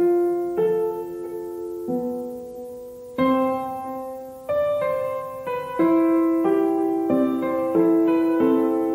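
Background piano music: slow chords struck every second or so, each ringing on and fading before the next.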